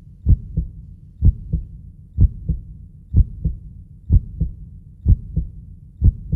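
Heartbeat sound: a steady lub-dub, a strong low thump followed by a softer one, repeating about once a second.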